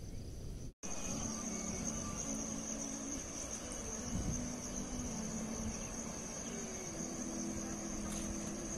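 Insects chirring steadily in one high band, with a low steady hum underneath that wavers briefly in the middle. The sound drops out for an instant about a second in.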